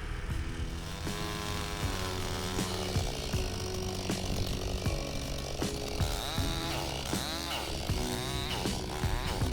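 Chainsaw revving up and down, its pitch rising and falling several times, over background music with steady low notes and a regular beat.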